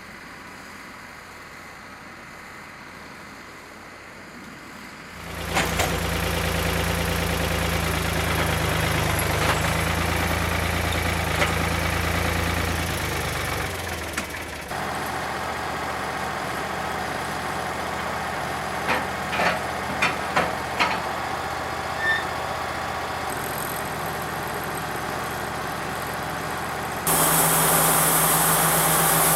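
An engine comes in about five seconds in and runs steadily, with several sharp knocks in the second half and a sudden step up in loudness near the end.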